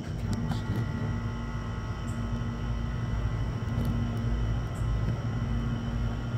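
Steady low machine hum and rumble, with a few faint, steady, high whining tones joining about half a second in.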